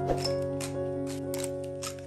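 Background music with held notes, over the short grating crunches of a wooden pepper mill being twisted, several strokes in quick succession.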